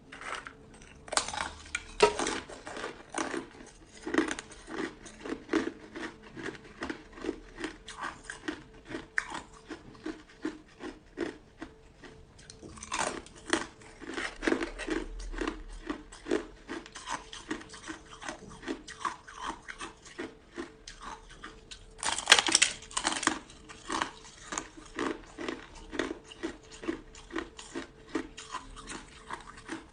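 Hard ice being bitten and chewed close to the microphone: steady crunching at about two chews a second, with louder cracking bites about a second in, near the middle, and again about three-quarters of the way through.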